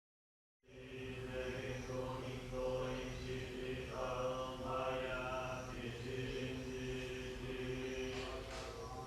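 Shingon Buddhist monks chanting a sutra, held notes in a steady drone. It begins about half a second in, after a brief silence.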